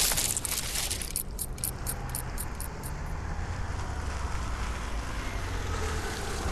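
Cars driving along a road, a steady low rumble of engines and tyres. Footsteps crunching in dry leaves fade away over the first few seconds.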